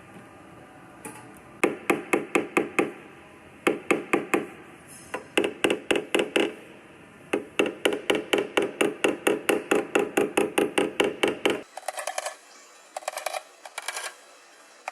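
Rapid, rhythmic tapping in runs of several strikes, about five a second, with short pauses between runs; near the end the strikes come in shorter, thinner bursts.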